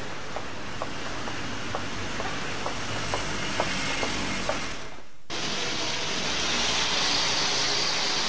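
Steady background noise with short, regular ticks about two a second. About five seconds in the sound drops out for a moment, then returns as a louder, steady hiss.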